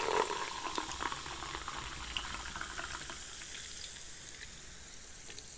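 Orange Fanta poured from cans into glasses and fizzing, a steady hiss of bubbles that slowly dies down.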